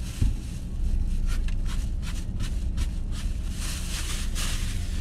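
A plastic shopping bag rustling and crinkling as it is handled and filled with sandwich rubbish, with one knock near the start. A steady low rumble runs underneath.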